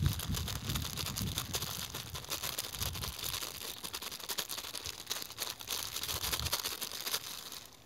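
Thin plastic bags crinkling and rustling in the hands as a bag of seasoning is opened and tipped into a bowl, a dense run of small crackles.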